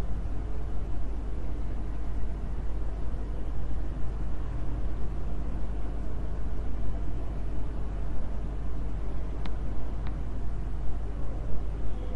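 Steady low rumble and hiss of background noise picked up by an open microphone, with two faint clicks close together near the end.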